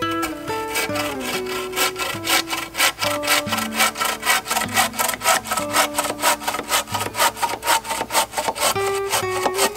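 Hand saw cutting through wood in quick, even strokes, about four a second, stopping near the end. Background music plays underneath.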